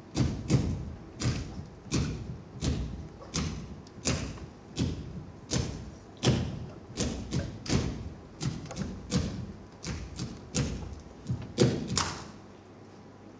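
Bare feet stamping on a stage floor in pizzica footwork: a steady run of thuds, about two a second, that stops about a second before the end.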